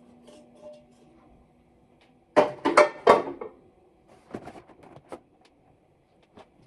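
Kitchen items being handled on a counter: a cluster of sharp clattering knocks about two and a half seconds in, then a few lighter taps and clicks, over a faint steady hum.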